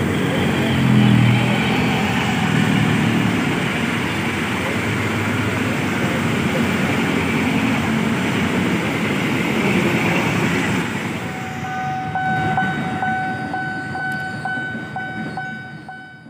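Diesel locomotive passing with a low engine rumble, followed by passenger coaches running by with a steady wheel-on-rail roar. Late on, a steady high tone with a regular ticking beat joins in as the train sound fades.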